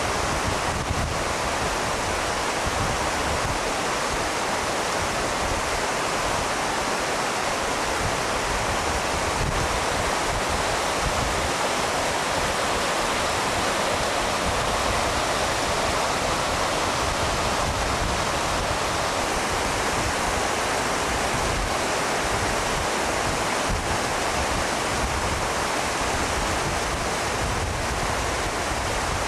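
A fast mountain river rushing over rocks and rapids, a loud, steady sound of white water.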